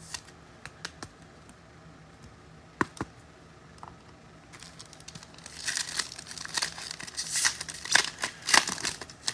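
Foil trading-card pack wrapper being torn open and crinkled: a few light clicks at first, then from about halfway a dense run of crinkling that grows louder.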